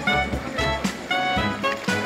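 Background music: a melodic track with a regular beat of percussive hits.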